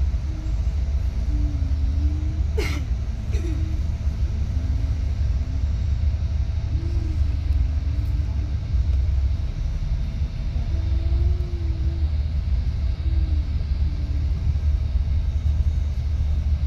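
Steady low rumble of a moving bus: engine and road noise, with a faint steady hum above it.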